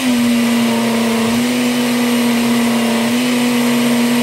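Countertop blender motor running at a steady speed with an even whir, giving a smoothie of coconut cream and banana its final short blend with basil leaves added.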